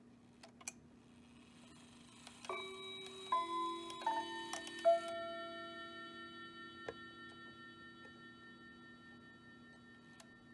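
Hamilton bracket mantel clock's chime playing the four-note quarter-hour chime: four struck notes about a second apart, each ringing on and slowly fading. A few light mechanical clicks come before the notes and once after them.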